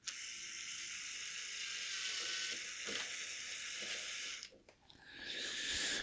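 Heat gun on its lowest setting blowing a steady hiss of hot air, cut off about four and a half seconds in and switched on again shortly before the end.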